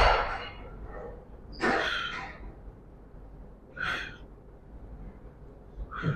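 A man breathing out sharply in short, forceful puffs during a set of cable reverse curls, one breath with each rep about two seconds apart; the first is the loudest.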